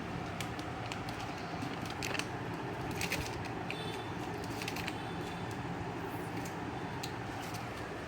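Tiny kittens scuffling while they play-fight: a dozen or so light, scattered clicks and scratches of paws and claws on a surface. A steady low hum runs underneath.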